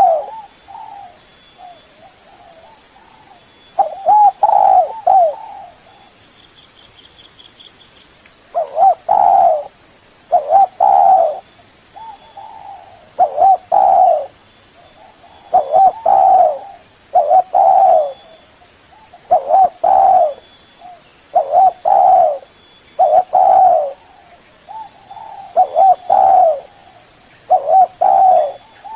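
Spotted dove (tekukur) cooing: loud, short coo phrases repeated every second or two, with brief pauses between runs. It is a lure call meant to draw in a rival dove. A faint high trill from another bird comes about six seconds in.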